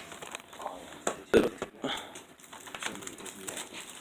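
Hands handling a plastic Blu-ray case and its packaging: scattered small clicks and rustles, with one louder knock about a second and a half in.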